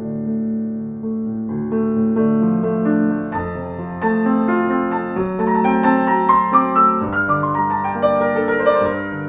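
Soft, slow instrumental piano music, with a run of higher notes in the middle.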